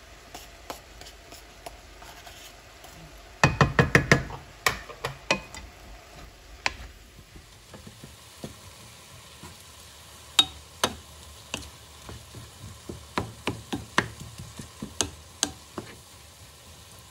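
Wooden spatula stirring ground pork in a nonstick pan over a light sizzle, with a quick run of loud knocks about three and a half seconds in and scattered taps and scrapes of the spatula against the pan after that.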